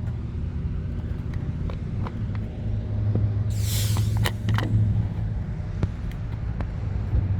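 Car engine running with a steady low hum, with a brief hiss about three and a half seconds in.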